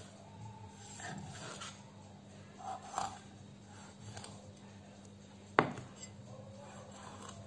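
Kitchen knife scoring slits into a whole raw fish on a wooden cutting board: soft slicing, scraping and tapping sounds, with one sharp knock on the board a little past halfway. A faint steady hum sits underneath.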